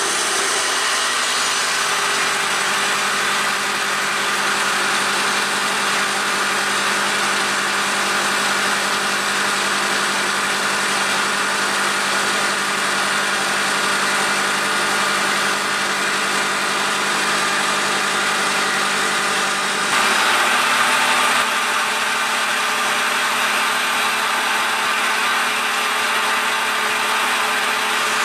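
Milling machine spindle running as an end mill side-cuts the edge of a metal bar, with flood coolant spraying on the cut. Steady cutting noise, briefly louder about twenty seconds in.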